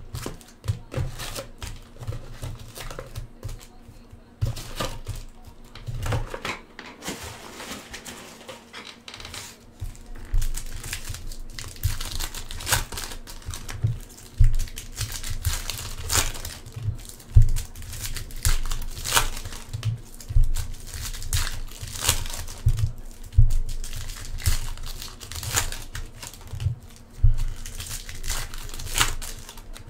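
Foil trading-card packs being crinkled and torn open by hand, a run of irregular crackles that grows louder and busier about ten seconds in.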